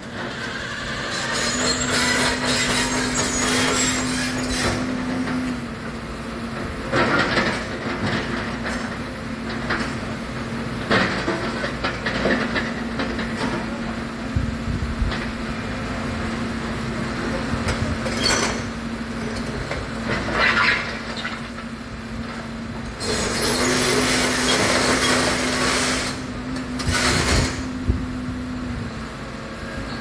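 Hidromek 140 tracked excavator working, its engine and hydraulics giving a steady hum, with repeated clattering and scraping as the bucket digs into broken paving stones and rubble and dumps them into a steel dump-truck bed. The longest, loudest clatter comes about three quarters of the way through.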